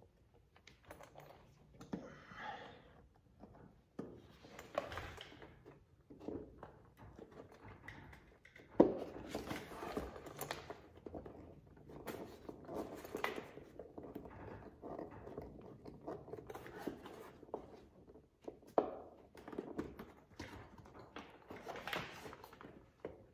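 Irregular rustling, creaking and knocking of a fabric door storage bag against the plastic door panel of a side-by-side as it is handled and screwed into place, with one sharp knock about nine seconds in.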